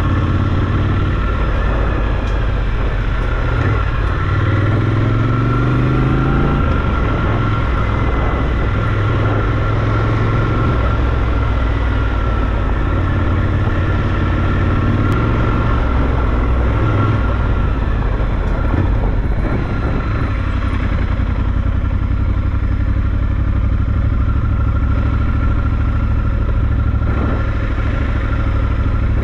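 Triumph Scrambler 1200 XE's 1200 cc parallel-twin engine running as the motorcycle is ridden, its pitch climbing under acceleration a few seconds in.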